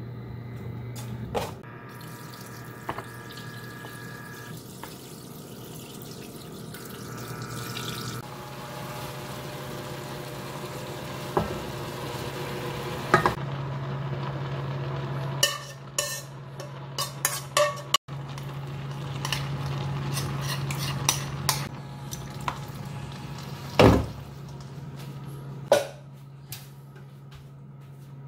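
Cooking sounds: fish cake squares stir-fried in a dry nonstick frying pan, then scraped into a steel pot and mixed with the bean sprouts, with scattered clicks and knocks of utensils on pan and pot. Two louder knocks come near the end, over a steady low hum.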